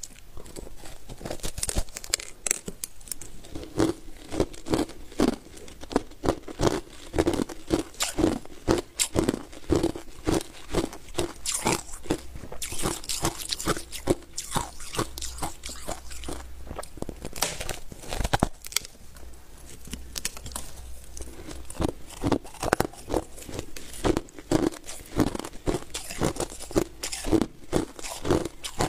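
Crushed ice being bitten and chewed: a close, continuous run of crisp crunches, several a second.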